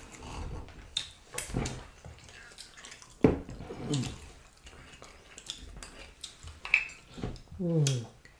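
Close-up eating sounds of people eating fish in pepper soup by hand: wet chewing, lip smacks and clicks, with a few short vocal hums that fall in pitch, about three seconds in and again near the end.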